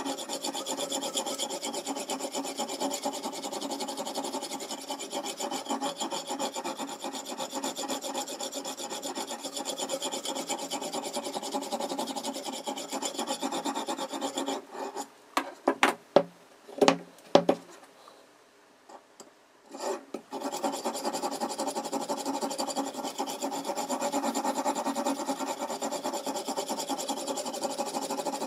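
An oil whetstone rubbing back and forth along a steel kitchen-knife edge on a Toohr guided sharpener, a dense steady scraping. About halfway through, the stroking stops for a few seconds with several sharp knocks and a short silence, then starts again.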